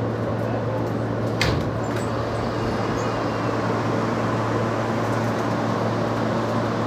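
Steady mechanical hum inside an R160 New York City subway car, with one sharp click about a second and a half in.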